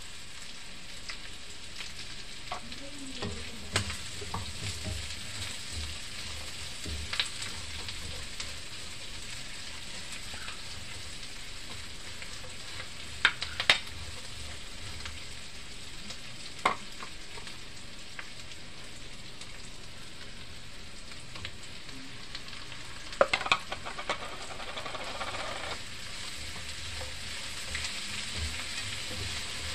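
Onions, vegetables and meat sizzling steadily in a nonstick frying pan while being stirred with a spatula, which knocks against the pan several times, most sharply in quick pairs about halfway through and again near the end.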